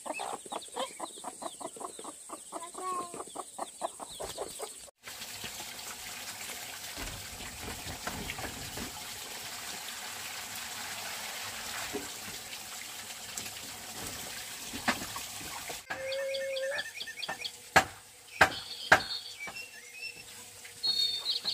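Chickens clucking for the first few seconds, then a steady rush of running water, then a few sharp knocks near the end with small birds chirping.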